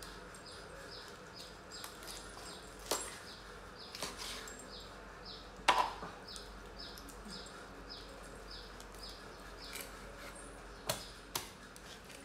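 A few sharp chops of a cleaver on a wooden cutting board, the loudest about halfway through and two more near the end. Behind them a high, short, falling chirp repeats about twice a second.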